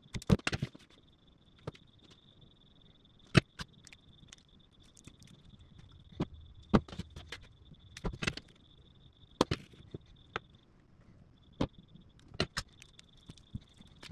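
Scattered clicks and knocks of hand work: tools, wires and a battery pack of cylindrical cells in plastic holders being handled, irregular and of varying loudness. Under them runs a faint steady high whine that drops out briefly about ten seconds in.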